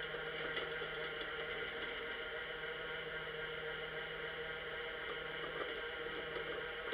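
Vehicle engine running with a steady, even drone.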